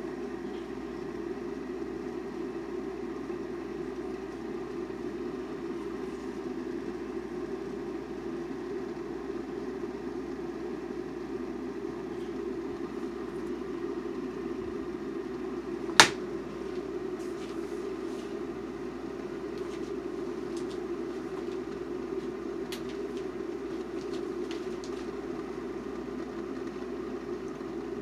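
Topwit glass electric kettle heating water, well short of the boil: a steady low hiss from the water warming over the heating plate. A single sharp click is the loudest sound, about halfway through, and a few faint ticks follow it.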